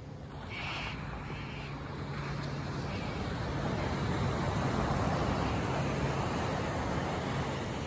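Ocean surf on a sandy beach: the rush of a breaking wave swells to a peak past the middle and then eases off. Two short high chirps come in the first two seconds.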